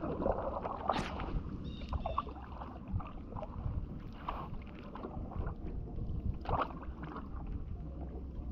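Canoe being paddled: paddle strokes in the river water with short, irregular splashes and knocks every second or two over a low steady rumble.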